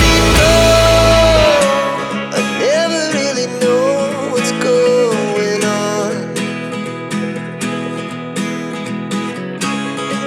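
Background music with a vocal melody over plucked acoustic guitar. A heavy bass part drops out about a second and a half in, leaving lighter plucked guitar.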